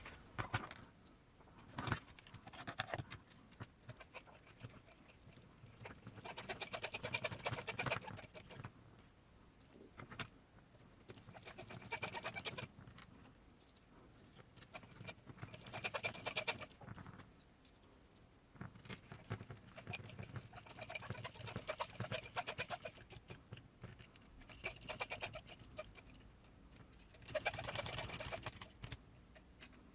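Cordless electric screwdriver running in short spells of one to three seconds, about six times, driving small M3 button head screws into a carbon chassis rail, with the faint whir of its motor and the clicking of its gearing.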